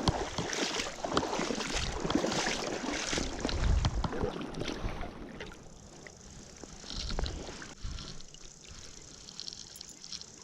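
River water splashing and sloshing, with scattered knocks and handling noises. It is busiest for the first five seconds, then quietens to a faint trickle with an occasional tick.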